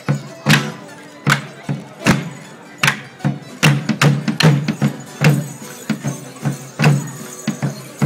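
Border morris stick dance: a folk tune with steady held notes, cut by sharp wooden clacks of sticks striking together, a little under one a second.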